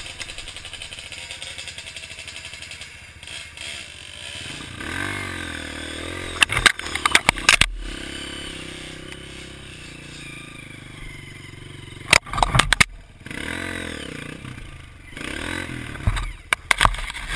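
Off-road trail motorcycle engine running, its pitch rising and falling. Three bursts of loud clattering knocks come through, at about six and a half seconds, about twelve seconds and near the end.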